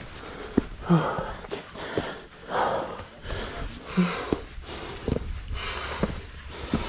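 Heavy, breathy panting of a hiker scrambling up a steep sandstone crack, one hard breath about every one and a half seconds, with short knocks and scuffs of hands and shoes on the rock.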